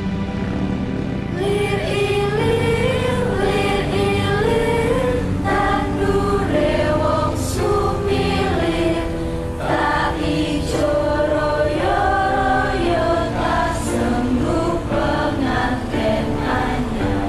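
Background music: voices singing together, like a choir, over a steady accompaniment.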